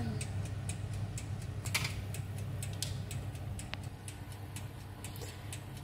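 Low steady hum of an electric fan oven running with its door open, with scattered light ticks and clicks.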